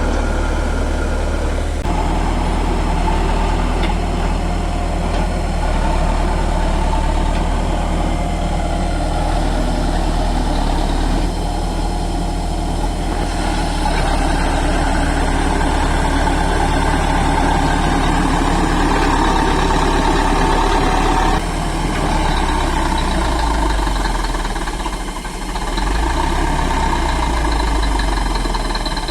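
Heavy diesel engine of a construction machine running continuously, its note shifting a few times and briefly dropping in loudness about 25 seconds in.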